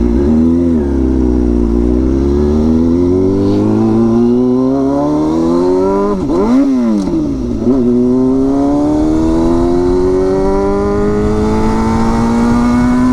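Straight-piped Kawasaki ZX-6R inline-four exhaust, loud, pulling with engine pitch climbing slowly. About six seconds in the revs drop, flick up in a quick blip and drop again, then climb slowly once more.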